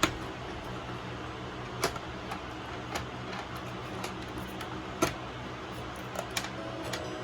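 A handful of sharp clicks and knocks, about five, as the Honda Grom's headlight assembly is handled and pressed back into place, over a steady background hum. The loudest click comes right at the start, another about five seconds in.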